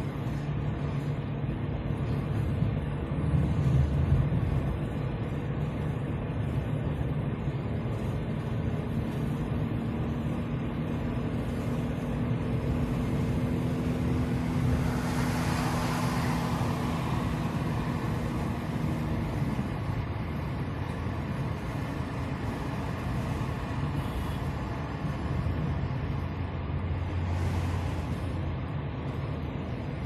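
A car driving up a winding road, its engine and tyre noise heard inside the cabin as a steady rumble. A steady hum runs through the middle and stops suddenly, and a short swell of rushing noise comes about halfway through.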